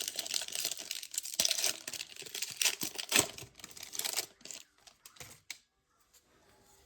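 A Panini Prizm baseball trading-card pack wrapper being torn open and crinkled by hand: irregular crackling and tearing that stops about five and a half seconds in.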